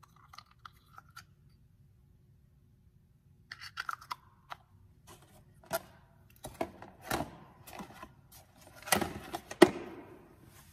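Small plastic tool box and a scent tin being handled: scattered light clicks, then a run of plastic knocks and clatter as the lid is worked, ending in the loudest sharp snaps about nine and a half seconds in as the box is shut and latched.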